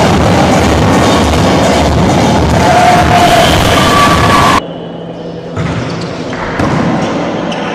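Spectators in a volleyball gym beating a drum and singing. The sound is loud and dense and cuts off abruptly about four and a half seconds in, leaving a quieter hall.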